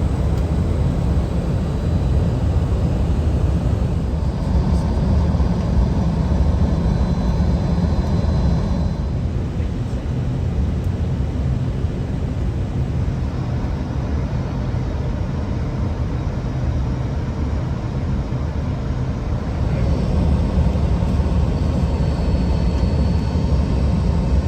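Steady low rumble of airflow and engines on the flight deck of an Airbus A320neo-family airliner descending on approach. It eases a little about nine seconds in and comes back up near the end.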